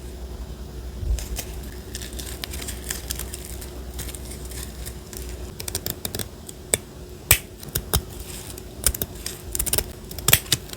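Paper and craft materials being handled close to the microphone: crisp clicks, taps and crackles, sparse at first and coming quicker and louder in the second half.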